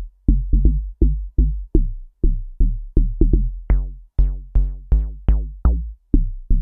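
Serum synth bass, a deep house FM-style bass patch, looping short plucky notes about three a second over a deep sub, each note starting bright and quickly turning dull under a filter envelope driven by an LFO on the cutoff. Around the middle the notes grow much brighter and sharper for a few beats, then settle back, as the cutoff modulation is adjusted.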